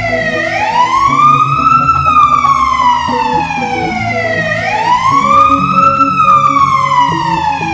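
Emergency vehicle siren wailing, slowly rising and falling in pitch twice, over background music.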